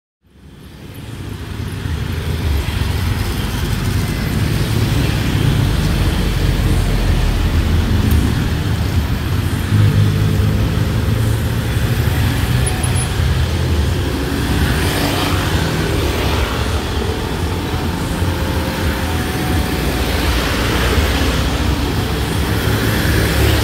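Road traffic of cars and motor scooters driving past close by, engines running in a steady rumble that fades in over the first couple of seconds.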